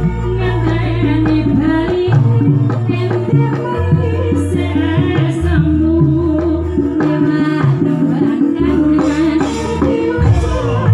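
A woman singing through a PA over a live band: a deep bass line that steps to a new note every second or two, with drum strokes.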